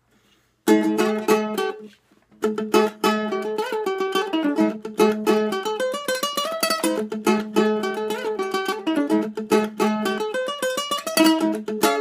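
Solo ukulele playing a fast instrumental tune. The plucked notes start about a second in, stop briefly near two seconds, then run on without a break.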